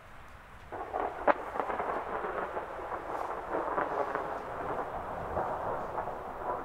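Thunder breaks in under a second in with one sharp crack and rolls on, with rain falling.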